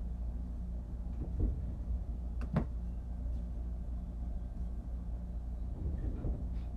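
Steady low hum of the room with a few soft knocks and bumps of things being handled and moved at a table, the sharpest about two and a half seconds in.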